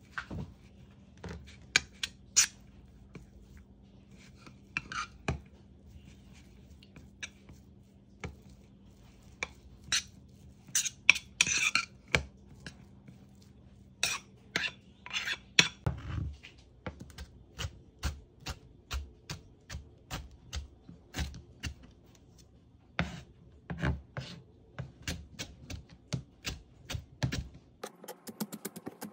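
Metal spoon scraping and clinking against a ceramic bowl as shredded imitation crab is stirred with mayonnaise. About halfway through this gives way to a kitchen knife chopping on a plastic cutting board, a steady run of sharp taps, about two to three a second.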